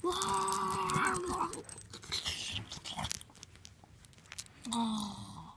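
Two drawn-out vocal calls, each held on one steady pitch: the first lasts about a second and a half, the second is shorter and comes near the end. Crunching and clicking fill the gap between them.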